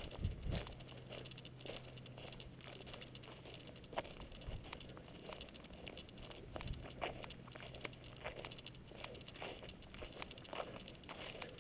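Footsteps of a hiker walking on a trail: light, irregular crunches and clicks, with a faint low steady hum under them for most of the stretch.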